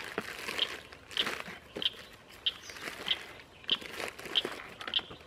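Plastic tackle box being packed and its cantilever trays pushed shut by hand: scattered clicks, knocks and rattles of plastic and tackle. Behind it a short high chirp repeats steadily, about one and a half times a second.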